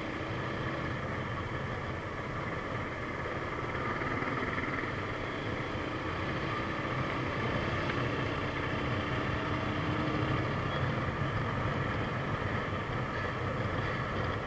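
Motorcycle running steadily under way, its engine mixed with wind and road noise as heard from on the bike.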